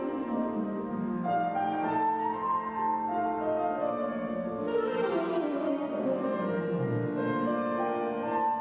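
Jazz saxophone improvising over piano and band accompaniment, with two long downward runs, the second one about five seconds in.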